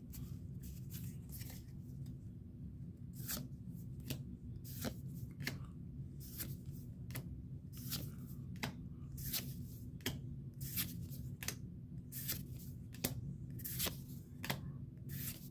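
Hands opening Pokémon trading card booster packs and sliding through the cards: irregular foil crinkles, rips and card flicks, some in quick clusters, over a faint low steady hum.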